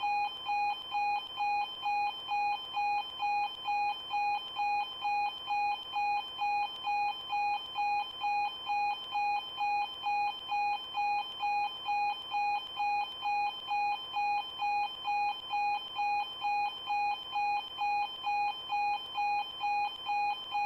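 Level crossing warning alarm ringing in an even, unbroken rhythm of about two strokes a second, each stroke a ringing tone with higher overtones.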